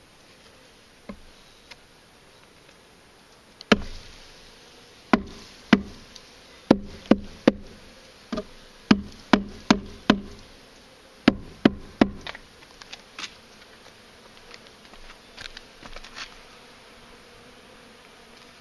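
Honeybees buzzing from an open hive, with a run of about a dozen sharp, loud knocks from about four to twelve seconds in, then a few fainter taps.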